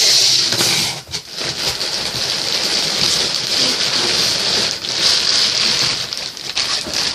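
Plastic packaging rustling and crinkling as it is handled, a dense continuous crackle with brief lulls about a second in and near five seconds.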